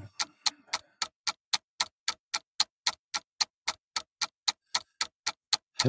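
Rapid, even ticking, about four ticks a second, with a low thump at the start and a deeper, falling thump at the end.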